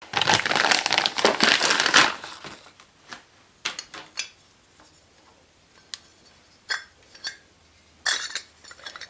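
Plastic packaging wrap being crumpled and torn, loud and dense for about two seconds, then scattered crinkles and light clicks of handling, with another short burst of crinkling near the end.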